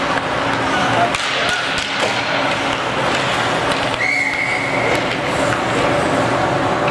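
Ice hockey rink during play: crowd chatter and scattered thuds, with a referee's whistle blowing one flat, steady note for just over a second about four seconds in.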